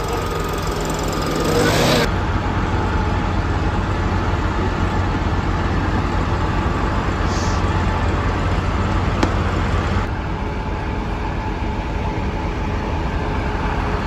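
Combine's diesel engine running steadily, a low, even rumble, with an abrupt change in the sound about two seconds in and again near ten seconds.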